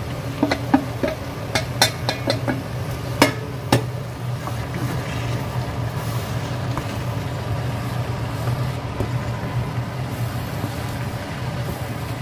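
A metal cup and wooden spoon knock against a frying pan several times in the first four seconds as marinated pork is tipped into frying ground pork lungs and liver. The meat is then stirred in the pan while a kitchen exhaust fan hums steadily underneath.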